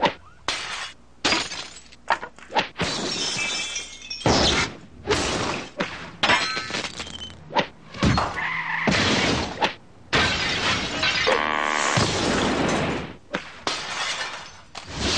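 A rapid string of crashing and shattering sounds, like breaking glass and smashing objects, one after another. Several come in quick succession at first, then longer bursts of rushing noise that stop and start abruptly.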